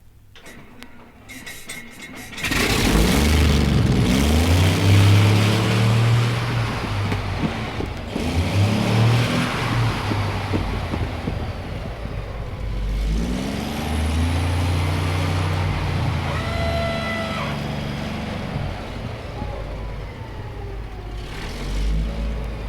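M48 Patton tank engine. After a quiet couple of seconds with a few record clicks, it comes in loud about two and a half seconds in and then revs up and down repeatedly, its pitch rising and falling.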